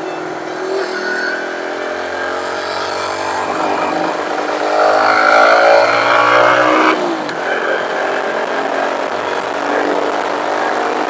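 Chinese-made Honda Monkey replica's small single-cylinder engine running under way. Its pitch climbs steadily through the middle and drops off suddenly about seven seconds in, with wind noise on the microphone throughout.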